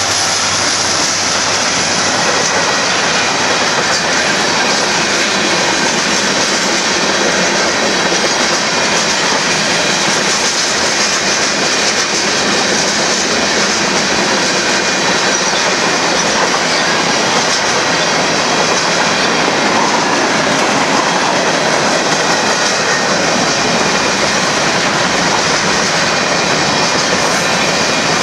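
Union Pacific freight train rolling past at close range: the trailing diesel locomotive goes by at the start, then a loud, steady rumble and rattle of freight-car wheels on the rails.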